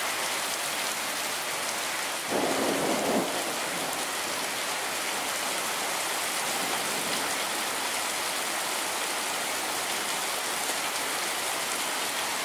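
Heavy rain pouring down on pavement, a steady even hiss. A brief, slightly louder sound rises over it about two seconds in.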